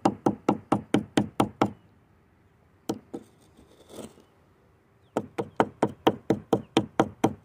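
Old metal snips pulled from the water being tapped sharply against a hard surface to knock the dirt off: two quick runs of taps, about four or five a second, with a couple of single knocks between them.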